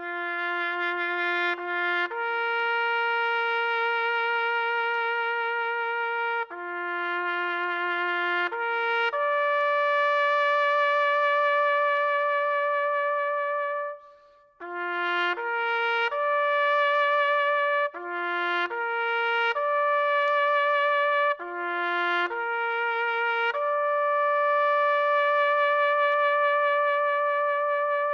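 Solo trumpet playing a slow melody of long held notes, with short breaks between phrases and vibrato on the longest notes.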